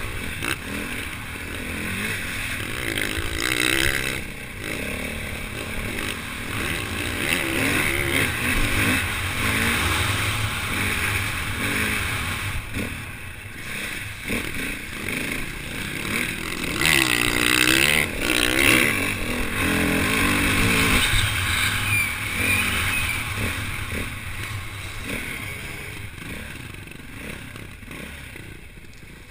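KTM 450 EXC's single-cylinder four-stroke engine, heard from a camera on the bike as it is ridden, its revs rising and falling with the throttle, with wind noise on the microphone. It is loudest about two-thirds of the way through and eases off near the end.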